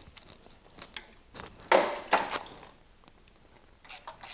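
Hand tools being worked under a car: a scrape about two seconds in, then a ratchet starts clicking rapidly near the end as it turns a 6mm socket on a wobble extension to loosen a hose clamp on the thermostat hose.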